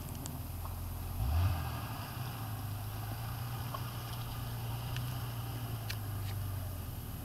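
Vehicle engine running at low revs with a steady low hum, rising briefly in revs about a second in and then settling back.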